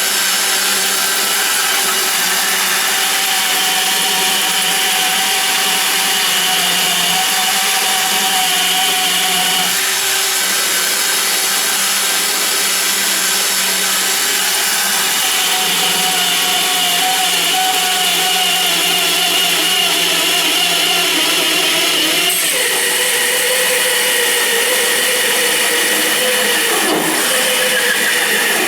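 A 50 mm hole saw driven by a power drill, cutting steadily through the work with a continuous whine; the pitch shifts about two thirds of the way through as the load changes.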